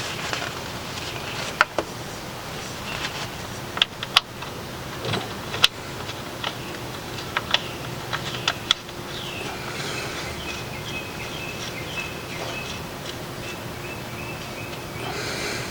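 Scattered sharp clicks and clinks of tools and parts being handled during an oil change, a dozen or so irregular knocks over the first half, then a faint steady high tone.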